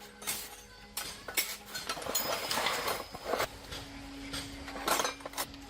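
Metal tools and parts clinking and knocking in a series of separate sharp clicks, over a faint steady hum.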